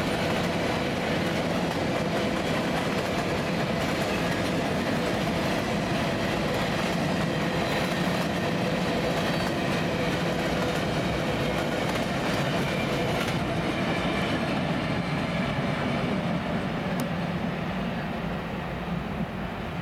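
Norfolk Southern freight train of covered hopper cars rolling past, steel wheels clattering steadily over the rails. The sound eases off a little near the end.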